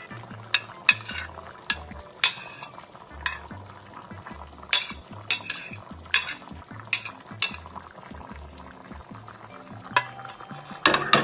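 Spatula scraping and knocking against a plate as julienned carrots are pushed off into a pan of soup: about a dozen sharp clacks, with a louder cluster of scraping near the end.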